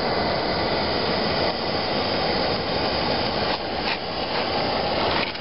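Steady rushing noise of a gas torch flame burning against a rubber suspension bushing to burn it out of the arm.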